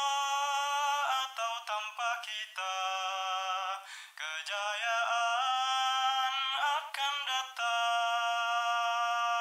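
Nasheed singing without words: the voice holds long sustained notes with short melodic runs between them, ending on a long held note.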